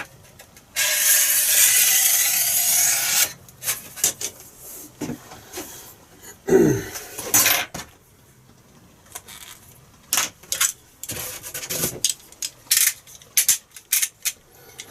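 A pen drawing a line on a model wing: a scratchy rub that lasts about two and a half seconds. Scattered light clicks, taps and short scrapes follow as the marking-out goes on.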